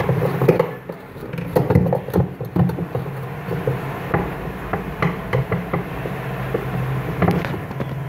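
Irregular metal clicks and knocks of a long screwdriver working the bolts of a washing machine's gearbox pulley, over a steady low hum.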